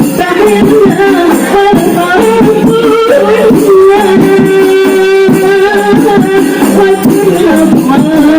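Qasidah rebana music: voices singing a melody, holding one long note about halfway through, over rebana frame drums beaten in a steady rhythm.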